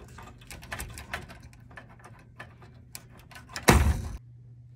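Small plastic clicks and rattles of wire-harness plugs being wiggled and pulled off the spade terminals of the relays on a microwave oven's control board, with one much louder clack near the end.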